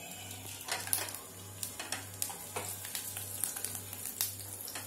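Chopped garlic sizzling in hot oil in a steel kadai, with scattered pops and crackles. This is the first stage of a tempering.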